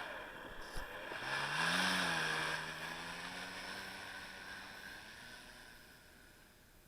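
Electric motor and propeller of a small RC airplane throttling up, the pitch rising about a second in, then holding steady and fading out as the plane flies away.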